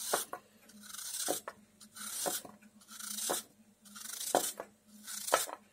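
Kitchen knife cutting thin slices off a peeled apple held in the hand: a crisp slicing stroke about once a second, with light taps as the slices drop into an aluminium pan.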